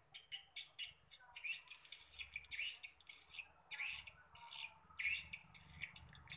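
Swiftlets twittering: short, high chirps in quick bunches, several a second, loudest in the middle stretch.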